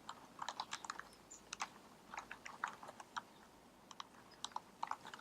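Microphone rubbing against a dress: faint, irregular scratchy crackles and clicks, several a second.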